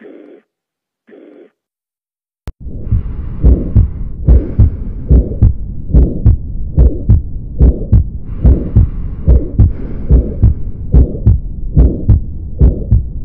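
Heartbeat heard through a stethoscope: after a click about two and a half seconds in, a steady run of paired lub-dub beats, roughly 75 a minute.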